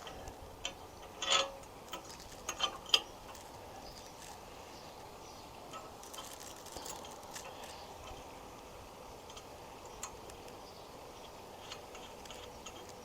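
A few sharp clicks and clinks of metal bike-rack hardware being handled during assembly, the loudest at about one and three seconds in, then only faint scattered ticks.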